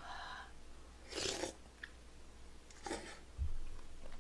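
Close-miked eating: a person slurping and chewing glass noodles from Andong braised chicken, with a few short wet slurps and mouth smacks. A dull thump comes about three and a half seconds in.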